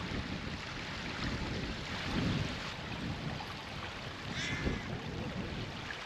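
Wind buffeting the microphone in uneven gusts over the steady rush of a stream, with a short high chirp about four and a half seconds in.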